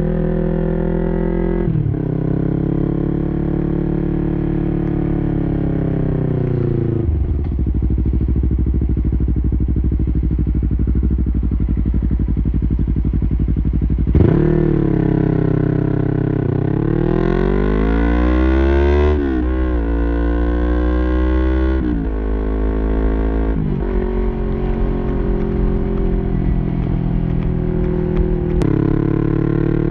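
Yamaha YZF-R3's 321 cc parallel-twin engine running through an Arrow Pro-Race full exhaust system while riding. Early on the engine pitch falls as the bike slows, then holds low and steady. About halfway there is a sudden hard rev, and the bike accelerates with the pitch climbing and dropping back at gear changes, twice.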